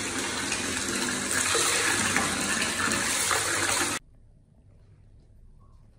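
Bathtub tap running full, water gushing into a filling tub. The rush cuts off abruptly about four seconds in, leaving faint quiet.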